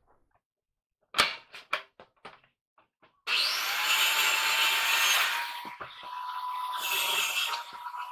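A few knocks on a wooden pallet, then about three seconds in a corded electric saw starts and cuts through the pallet's deck boards. Its motor whine holds steady while the cutting noise swells and dips as the blade bites into the wood.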